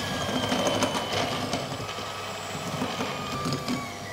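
Electric hand mixer running at low speed, its beaters creaming cubed butter and sugar in a glass bowl: a steady motor whine with scattered clicks.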